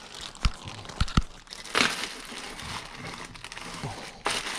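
Clear plastic parts bag crinkling and rustling as it is handled, with a few sharp light knocks about half a second and a second in.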